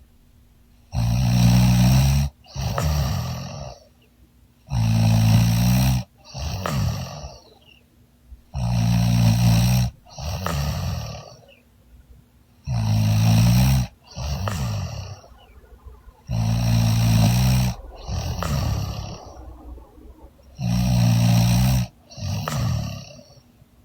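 A woman snoring loudly in deep sleep. Each breath gives a loud, rasping snore followed at once by a weaker one, then a short pause, in a steady rhythm of about one breath every four seconds, six in all.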